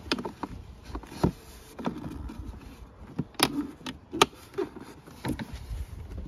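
Hard plastic interior door trim parts knocking and clicking as the door handle insert is worked into its clips and slides, with irregular sharp taps, the loudest two a little past halfway.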